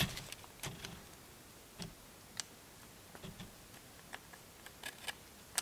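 Irregular light metallic clicks and ticks as the top compression ring is spread with ring pliers and fitted into its groove on a 1.9 TDI diesel piston.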